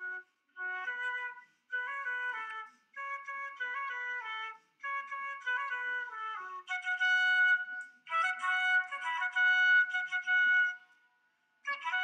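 Solo concert flute playing short phrases of stepped notes with brief breaks for breath between them. The first phrases move downward in pitch; about halfway through the playing turns louder and higher with longer held notes, and it stops briefly near the end.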